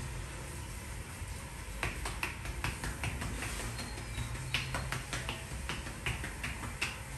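Hand-percussion massage on a man's back and shoulders: an irregular run of sharp claps and pops from the masseuse's striking hands. The strikes are sparse at first and come several a second from about two seconds in, over a steady low hum.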